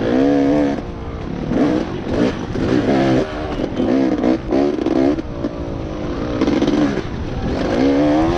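Dirt bike engine heard from on board, revving up and backing off about seven times as the rider works the throttle around the track.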